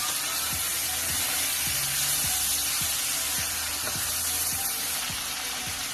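Glutinous rice with black-eyed peas and meat sizzling steadily in a hot pan as it is stir-fried, with a spatula stirring and scraping.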